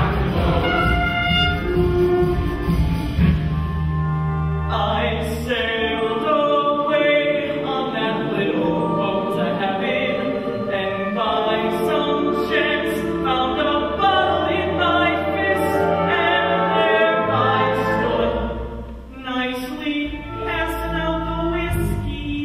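Live musical-theatre show tune: a male lead sings with the ensemble chorus joining in, over pit-orchestra accompaniment.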